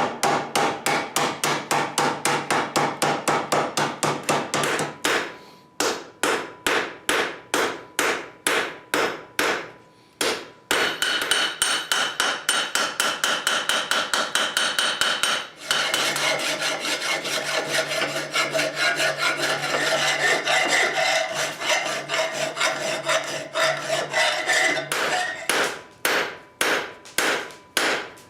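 Hand hammer striking hot steel on an anvil in a fast, steady rhythm of about four blows a second, with a few brief pauses. The steel is being forged into a small flux spoon.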